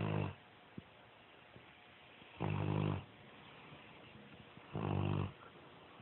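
Bloodhound snoring: short, low, pitched snores that repeat about every two and a half seconds, one fading out at the start and two more full ones after it.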